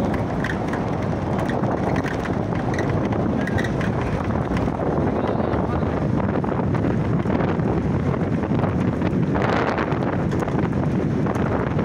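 Wind rushing over the microphone of a phone filming from a moving car, over steady road noise. A louder rush of wind about nine seconds in lasts a couple of seconds.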